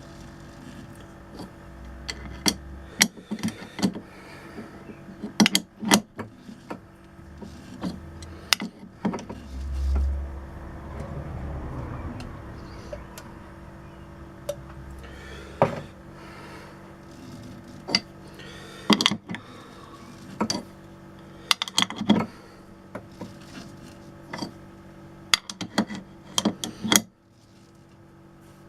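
Old lathe's motor running with a steady hum, with irregular sharp metal clinks and knocks from work at the machine. A low thump comes about ten seconds in, and the hum cuts off near the end as the machine is switched off.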